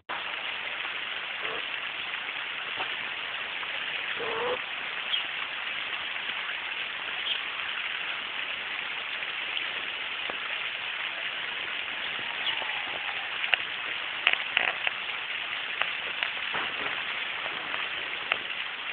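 Steady rain falling on a garden, an even hiss, with a few sharper ticks of drops about two-thirds of the way through.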